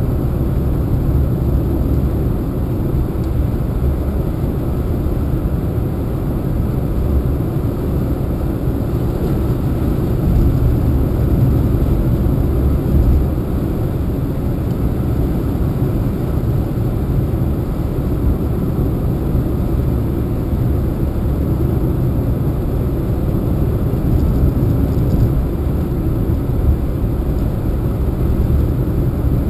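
Steady low rumble of a car driving at road speed, tyre and engine noise heard from inside the cabin.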